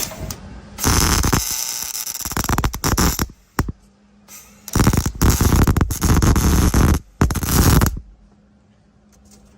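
Electric welder tack-welding roll cage tubing: the arc crackles and sizzles in two bursts of about two to three seconds each, with a brief break in the second.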